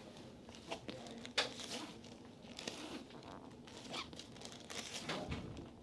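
Irregular rustling and swishing of hands rubbing over skin and fabric during a massage, with a sharp click about a second and a half in.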